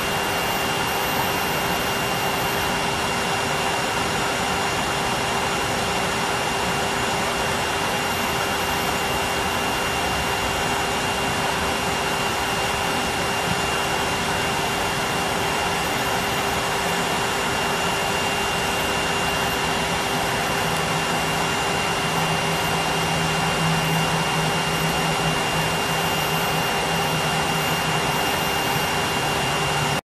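Numatic Henry vacuum cleaner running steadily, its motor giving a constant rushing whine with a high tone; a lower hum joins about twenty seconds in.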